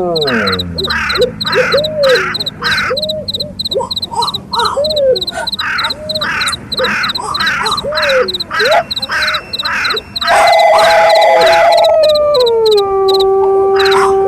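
Layered night soundscape: crickets chirping steadily, crows cawing over and over, and a wolf howl starting about ten seconds in that drops in pitch and holds. It opens on the falling tail of another howl.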